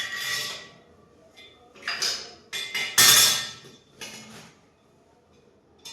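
Metal parts of a washing machine stand knocking and clanking together as they are handled and fitted. There are several sharp, ringing knocks, the loudest about three seconds in.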